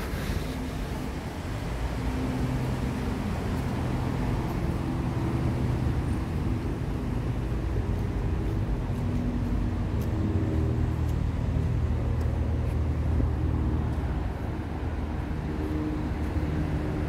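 Nearby road traffic: motor vehicle engines running, a steady low rumble with engine hum that shifts in pitch, a little louder from about two seconds in.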